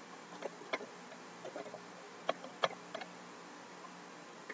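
Keystrokes on a computer keyboard typing a password: a dozen or so short, separate clicks, irregularly spaced, over a low steady hum.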